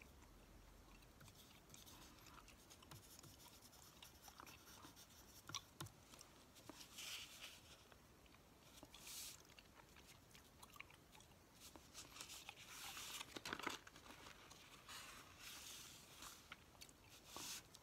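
Close-miked chewing gum being chewed, with soft rustles and crinkles of newspaper grocery flyers being leafed through and lifted. The sounds are quiet and come in short, irregular bursts.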